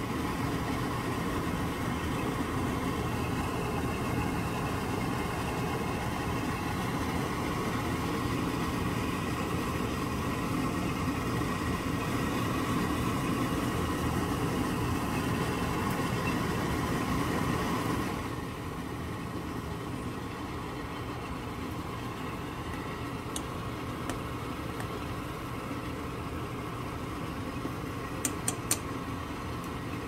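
Pot of udon noodles at a hard boil on a gas stove: a steady bubbling, rumbling boil that drops a little in level about two-thirds of the way through. A few small sharp clicks come near the end.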